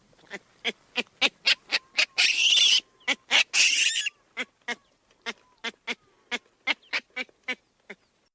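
Olive baboon calls: a run of short, sharp calls at about two to three a second, broken by two longer, loud, harsh calls about two and three and a half seconds in.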